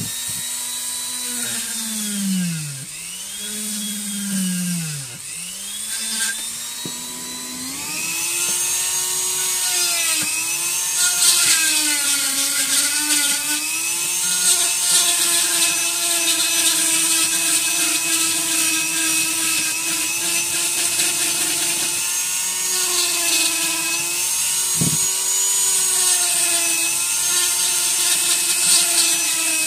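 Flexible-shaft rotary tool carving wood, its motor whining with a grinding hiss from the bit. The pitch dips and recovers several times in the first few seconds, then holds higher and steadier with small wobbles as the bit works the wood.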